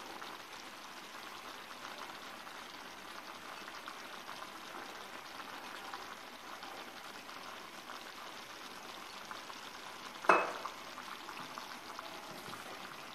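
Steady soft sizzling hiss of a clay tajine cooking on the heat, with one sharp knock about ten seconds in.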